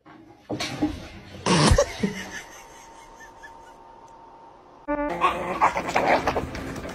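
A sharp thump about a second and a half in, then quieter room sound. About five seconds in, two young pugs start play-fighting over a toy, with dog noises and scuffling.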